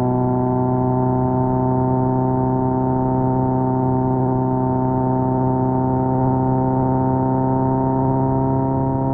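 Kawasaki Z900's 948cc inline-four engine through an SC Project exhaust, holding a steady cruise with its note rising slowly as the revs creep up.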